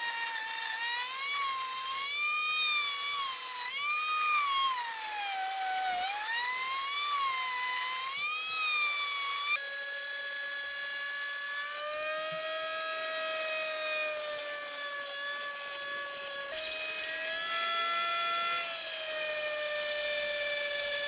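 Carbide burr spinning in a Foredom flex-shaft rotary tool set up as a tool post grinder on a lathe, cutting a groove in a steel part: a high whine whose pitch sags and recovers as the burr bites. About ten seconds in the whine drops to a lower pitch, with a few abrupt jumps where the sound cuts.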